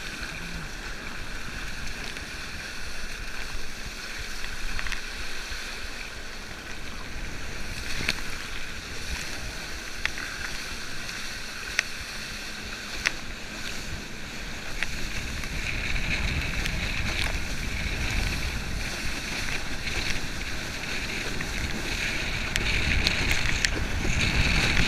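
A wakeboard carving across a boat's wake: steady rushing water and spray with wind on a chest-mounted action camera, and scattered sharp ticks. The rush grows louder in the second half and is loudest near the end.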